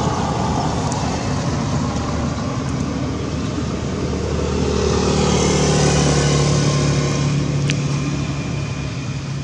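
A motor vehicle's engine passing by, its sound swelling to a peak about six seconds in and then fading.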